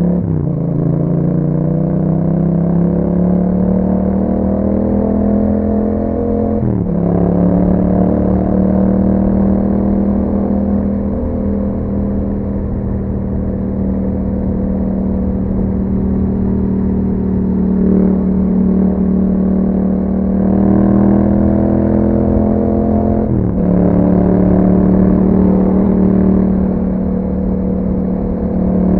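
Yamaha MT-07's parallel-twin engine breathing through an Akrapovic exhaust while riding. The note falls at first, then holds steady at cruising revs. It breaks briefly about seven seconds in and again about two-thirds of the way through.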